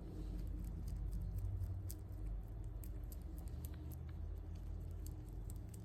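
Pet rabbit chewing food: a quick, irregular run of small crunching clicks over a low steady hum.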